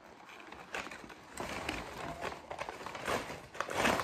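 Rustling and crinkling of a white perforated plant-wrapping sleeve as it is handled and pulled off a plant, in irregular bursts.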